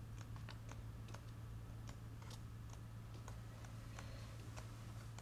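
Pages of a book being leafed through: scattered small paper ticks and soft rustles, irregularly spaced, over a faint steady low hum.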